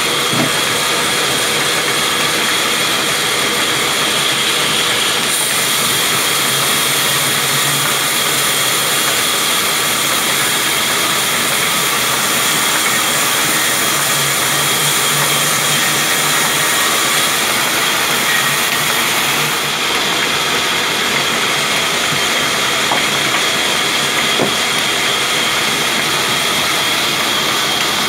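Large vertical band saw running and sawing a log lengthwise: a loud, steady hiss from the blade with a high-pitched whine, and the belt drive and pulley turning underneath.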